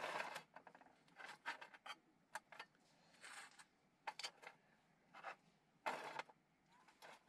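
Quiet sounds of eating with chopsticks: scattered clicks and scrapes of chopsticks against camp cookware, with a few short rustling bursts between them.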